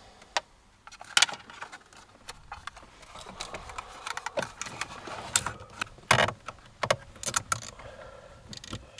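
Irregular plastic clicks, taps and rustling from hands handling the brake controller's wiring plug and loom behind a car's lower dash panel, with a few sharper knocks.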